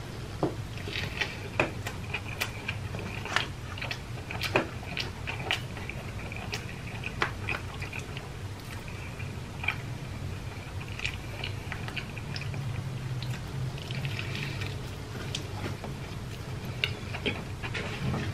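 A man chewing and biting food close to the microphone: smacking and clicks at irregular moments over a steady low hum.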